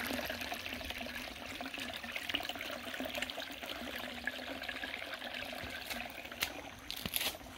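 Small spout of spring water trickling steadily, with a few light clicks near the end.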